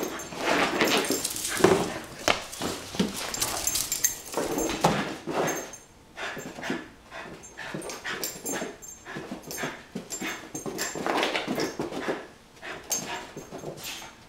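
Corgi-mix dog whining and panting in excitement while chasing and sniffing after a pet rabbit, mixed with many short knocks and scrabbles, the loudest about a second and a half in.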